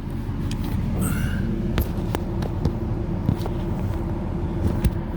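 Steady low hum with scattered light clicks and rustles as a monitor cable is worked behind vehicle seat trim.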